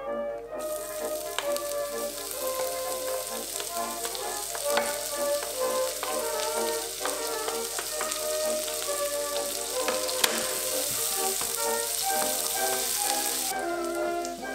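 Chopped onions sizzling as they fry in hot bacon fat in a pan, the sizzle starting about half a second in and cutting off shortly before the end. A few sharp clicks sound over it, the loudest about ten seconds in.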